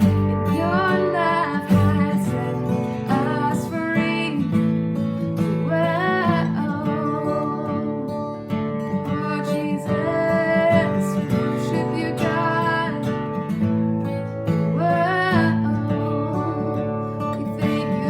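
Church worship band music: strummed acoustic guitar over sustained chords, with a voice singing held, wavering notes but no clear words.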